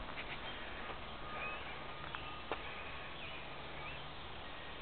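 Faint outdoor ambience with a steady low hum and a few brief, faint bird chirps.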